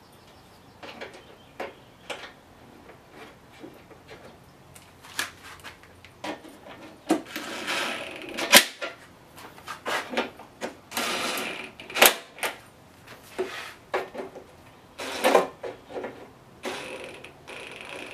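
Hand work on a push mower: scattered sharp clicks, knocks and scrapes of metal and plastic parts, with a few short runs of a cordless impact driver rattling as bolts are driven home.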